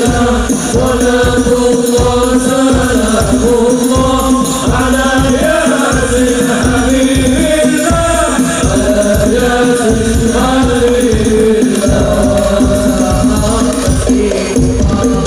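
Hadroh ensemble performing sholawat: men's voices singing a devotional melody together over a steady beat of rebana frame drums.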